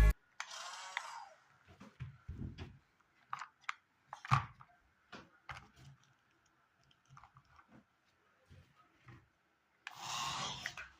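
Toy RC car being handled and run: scattered light clicks and knocks, with a short whir of its small electric motor near the start and another near the end.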